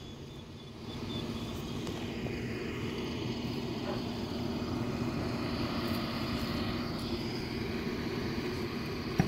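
Steady engine drone: an even rumble with a held hum that swells slightly about a second in and then holds without change.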